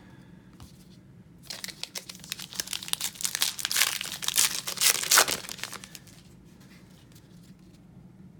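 A crinkly plastic baseball card pack wrapper being torn open and crumpled, a dense run of crackling that starts about a second and a half in and dies away near six seconds.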